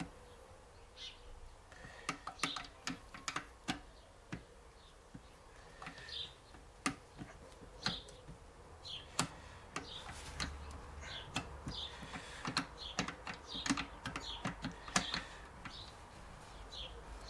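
Scattered light clicks and clinks of steel parts being handled in a Peugeot BE4 manual gearbox during disassembly, with short bird chirps in the background.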